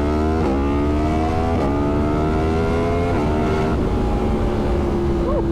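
Yamaha MT-10's crossplane inline-four accelerating hard, its pitch climbing through the gears with three quick clutchless quick-shifter upshifts, about half a second, a second and a half and three seconds in. After the last shift the engine holds a steady pitch and eases off slightly.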